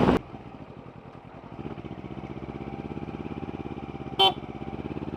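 Kawasaki Ninja 300's parallel-twin engine with an Arrow exhaust running at low revs in traffic, a steady even throb. A short horn beep sounds about four seconds in.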